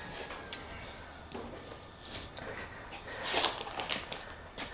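Hands working a throttle cable into a motorcycle's twist-grip throttle housing: small handling noises with a sharp click about half a second in and a brief rustle near the end.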